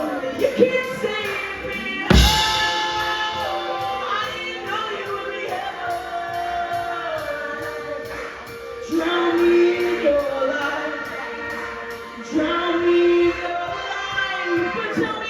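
Music with singing over a steady, quick high ticking beat.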